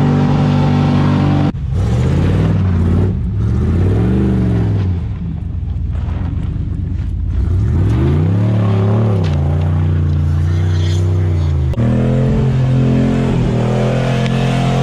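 Small-block Chevy 305 V8 in a 1989 Chevrolet CK1500 pickup revving hard: held high and steady at the rev limiter at the start, then climbing and falling in several swells as the truck spins its wheels and slides, and held high and steady again near the end.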